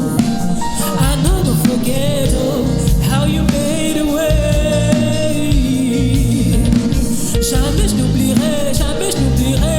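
Gospel worship song: a voice singing a wavering melody over band accompaniment with a steady low bass.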